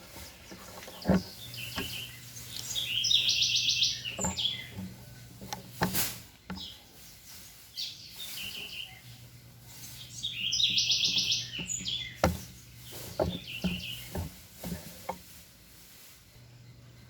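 A bird chirping in two short, rapid trilled phrases, with scattered sharp metal clicks and knocks from tools and engine parts being handled, over a steady low hum.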